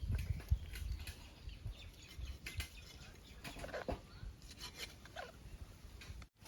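Faint clucking of domestic fowl, with a few dull knocks at the start.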